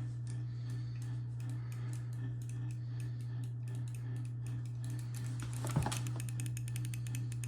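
Rapid clicking of a honeycomb-shell gaming mouse's buttons, with one duller knock near the end, over a steady low hum.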